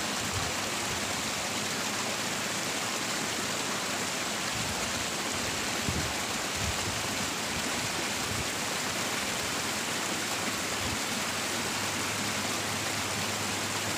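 Steady rush of water flowing along a small irrigation ditch.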